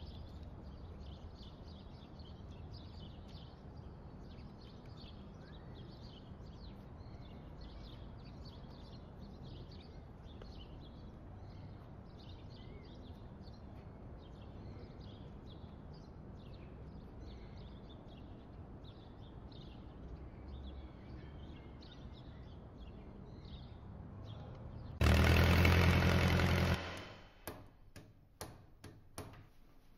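Outdoor ambience: a steady low rumble with many small bird chirps over it. About 25 seconds in, a loud buzz with hiss cuts in for about two seconds and stops suddenly, followed by a run of irregular sharp clicks.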